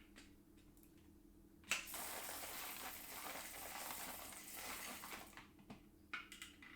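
Whole coffee beans pouring from the grinder hopper into a coffee bag: a continuous rattling rush that starts suddenly about two seconds in and lasts about three and a half seconds, followed by a few small clicks and knocks of handling.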